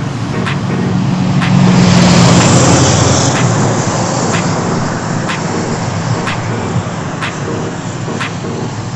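Road traffic, with a motor vehicle passing close by. It swells from about a second in, is loudest around two seconds in, then fades into steady traffic noise.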